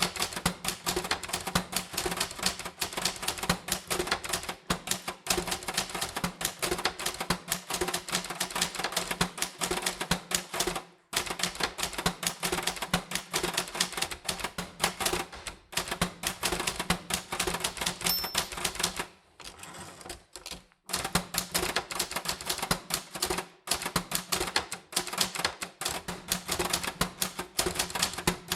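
Typewriter keys typed in quick, uneven runs of sharp clacks, with a few short pauses and a longer lull a little past two-thirds of the way through.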